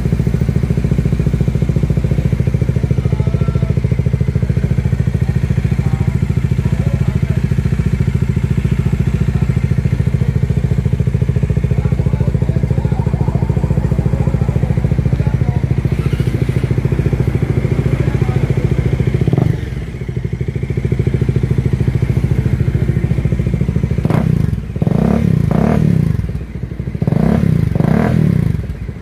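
Bajaj Dominar 400's single-cylinder engine running through a new Yoshimura carbon slip-on muffler. It idles steadily, gives one short rev about two-thirds of the way in, then several quick throttle blips near the end.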